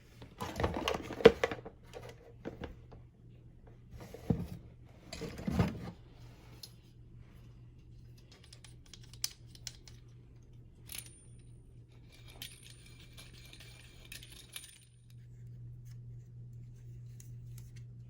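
Small hard objects being handled and set down: a burst of knocks and clatter in the first few seconds, then scattered light clicks and taps.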